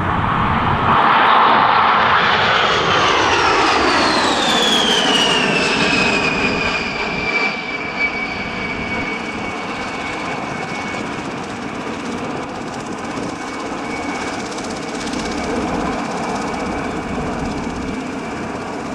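B-52H bomber's eight TF33 turbofan jet engines passing in a low flyby. The sound is loudest about a second in, then a whine drops sharply in pitch as the bomber goes by and levels off into a steady tone over a jet roar that slowly fades.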